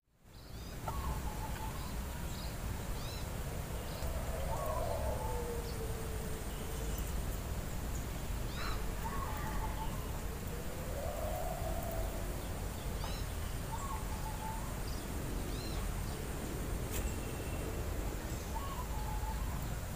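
Outdoor ambience of birds calling: short high chirps and repeated mid-pitched calls, with two long drawn-out calls that rise and fall, over a steady low rumble. A faint steady high whine stops near the end.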